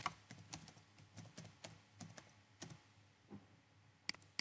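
Typing on a computer keyboard: quick, uneven key taps, faint, with two sharper clicks near the end as the short chat message is sent.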